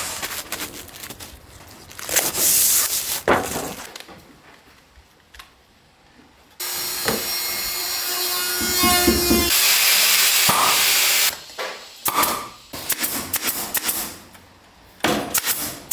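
Renovation work: a power tool starts suddenly partway through and runs steadily for about five seconds. Around it are scraping and a series of knocks from tools on wood or building material.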